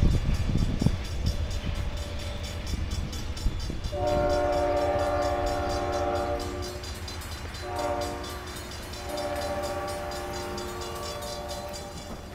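The low rumble of a passing Amtrak passenger train fades, then the horn of its lead cab car sounds in the distance. It gives a long blast, a short one and another long one, the grade-crossing signal.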